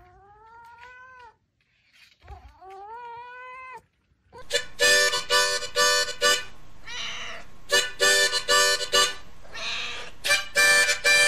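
A cat meows twice, each call short and rising in pitch. About four seconds in a harmonica starts, played loud in short held blasts of chords, with rougher, smeared sounds between some of the blasts.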